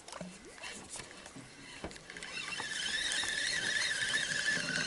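Spinning reel being cranked during a lure retrieve. A few faint clicks, then from about two seconds in a steady, slightly wavering squealing whine.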